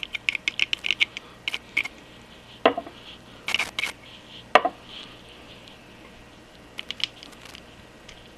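Quick run of clicks from a pump oil can being worked to oil a lathe apron's bevel gear and shaft, followed by a few light metallic knocks and clicks as the steel bevel gear is handled and fitted, two of them sharper, about a third and halfway in.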